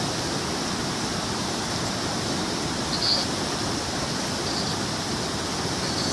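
Steady rush of falling water from a river waterfall: an even, unbroken hiss with a faint short high blip about three seconds in.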